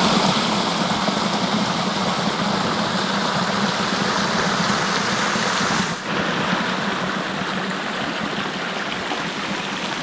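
Shallow river water rushing over rock ledges at the top of a small waterfall: a steady rush with a brief dip about six seconds in.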